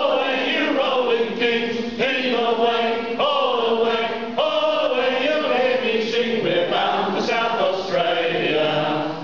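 A group of men singing a sea shanty together in long held notes, a new note about every second.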